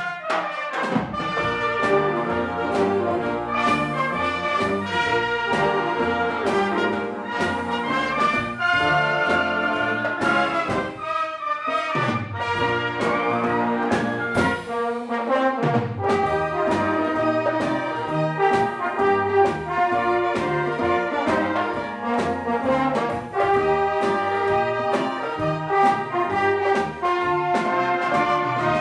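A concert wind band playing, with brass prominent: trumpets and trombones over a full ensemble with steady rhythmic accents.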